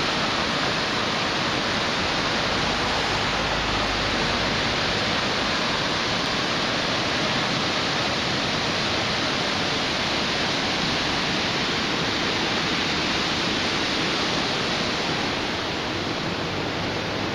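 Flash-flooded river rushing below a bridge: a steady, loud noise of fast-moving floodwater.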